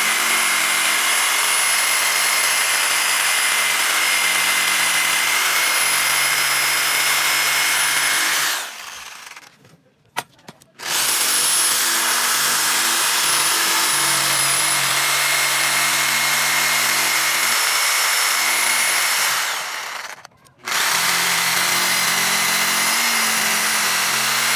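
Electric jigsaw cutting through a thick wooden board, running with a steady high whine in three long stretches. It stops for about two seconds a third of the way in and again briefly later on.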